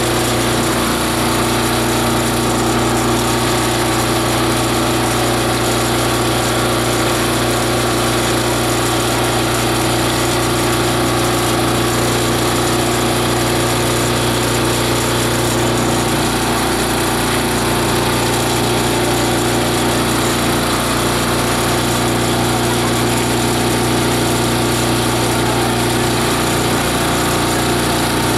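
Multi-blade chopper-shredder grinding fibrous material, running with a steady, unbroken mechanical drone.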